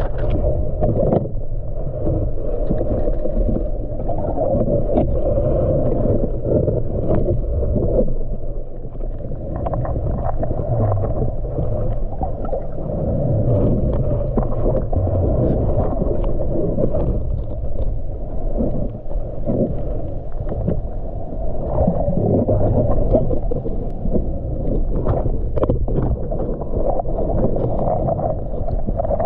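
Muffled underwater sound picked up by a submerged camera: a dense, steady low rumble of moving water with scattered small clicks and knocks from the snorkeler swimming and handling the dip net.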